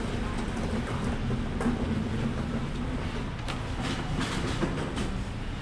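Steady low background rumble, with a few light clicks of a knife on a plastic cutting board in the second half as fruit is cut.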